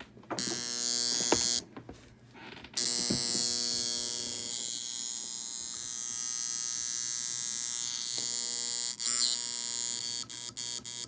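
Homemade electromechanical buzzer horn, a transformer primary coil cut in half vibrating a metal plate, buzzing on AC. It sounds for about a second, cuts out briefly, then starts again and keeps going, with a few short dropouts near the end.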